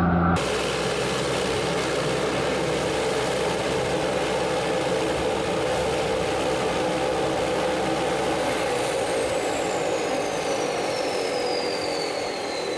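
A floatplane's engine drones steadily. About nine seconds in, a high whine joins it and falls slowly in pitch.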